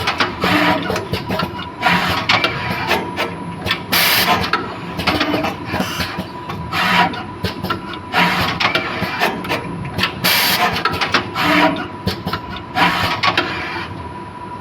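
Automatic PCB wire soldering machine running through its cycle: rapid clicks and knocks of moving parts with a short hissing burst every two to three seconds, over a steady faint whine.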